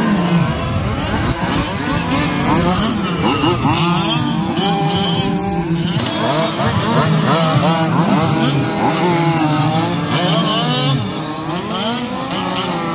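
Several 1/5-scale RC cars' small two-stroke gas engines revving up and down at once as the cars accelerate and brake around a track, with pitches that keep rising and falling over one another.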